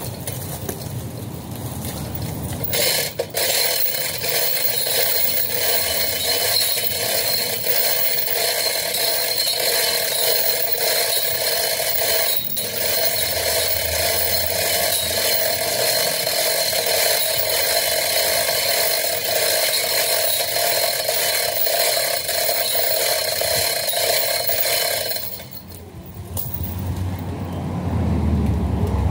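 Chain hoist hung from a metal tripod, its ratchet clicking rapidly and evenly as it is worked to lift a flax clump out of the ground. The clicking starts about three seconds in and stops about four seconds before the end.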